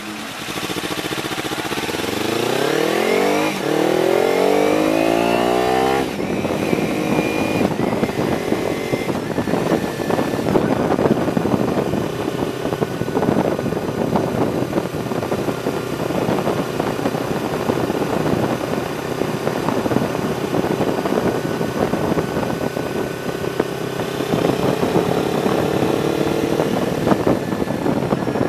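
Kawasaki Ninja 300's parallel-twin engine pulling away from a stop, revving up in two rising sweeps with a gear change between them. About six seconds in, a loud, steady rush of wind on the tank-mounted camera takes over, with the engine running on underneath.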